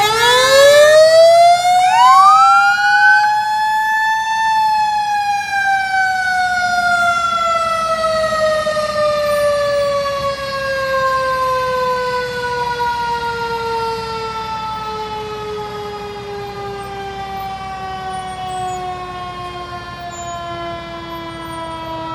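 Fire engine's mechanical siren winding up to a high wail within about four seconds, with a second rise starting about two seconds in, then slowly winding down in pitch and loudness and still falling at the end.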